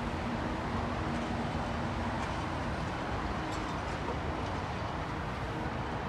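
Steady outdoor background noise at a construction site: a low rumble and hiss with no distinct events, and a faint hum in the first couple of seconds.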